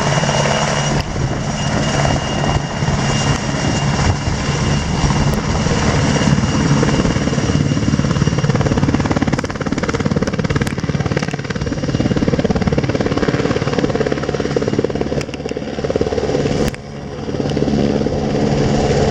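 Large rescue helicopter flying low and descending to land close by: the steady beat of its rotors over the whine of its turbine engines, loud throughout, dipping briefly near the end.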